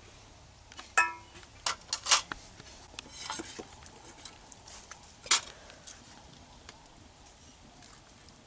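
A steel ladle knocking against steel cooking pots: a few sharp clinks in the first two seconds, the first ringing briefly, and one more about five seconds in.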